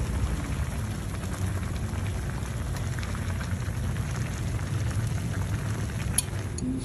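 Pan of snake and leaf soup boiling on the stove: a steady bubbling hiss, with a sharp click at the start and another about six seconds in.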